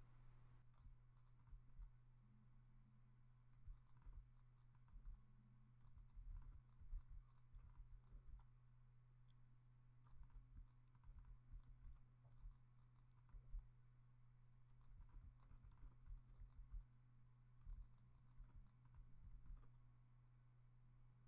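Faint computer mouse and keyboard clicks in quick irregular bursts, over a steady low hum.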